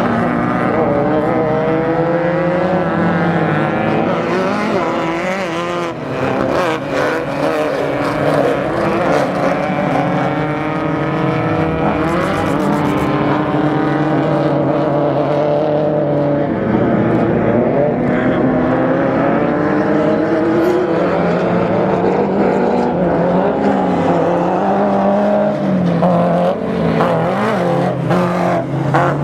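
Off-road race car engine running hard, its pitch rising and falling again and again as it revs up and changes gear.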